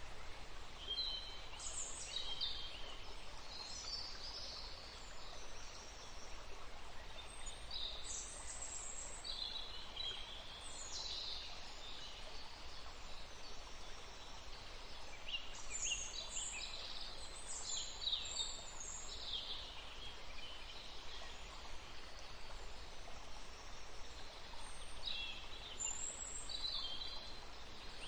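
Wild birds chirping and trilling in short high-pitched bursts, coming in clusters every few seconds over a steady background hiss.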